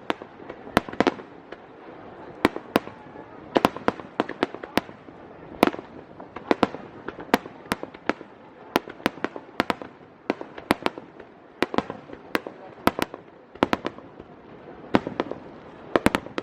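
Aerial fireworks going off in rapid succession: sharp cracks and bangs, often several a second in clusters, over a steady background hiss.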